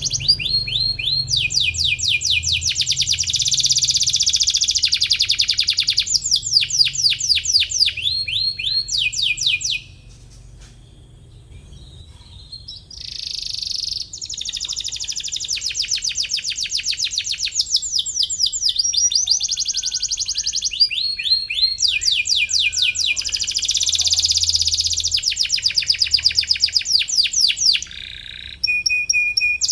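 Domestic canary in full song: long runs of rapid, high trills and fast repeated chirping notes. It breaks off for about three seconds a third of the way in, then carries on.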